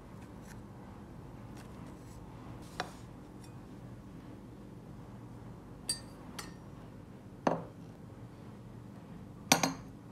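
Light clinks and knocks of tableware being handled and set down: chopsticks on a ceramic plate and dishes placed on the table, a few sharp ones spread apart, the loudest near the end, over a faint steady hum.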